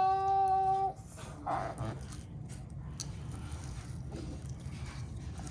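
A long, steady, high-pitched vocal cry, held on one note, that breaks off about a second in, followed by a brief softer vocal sound.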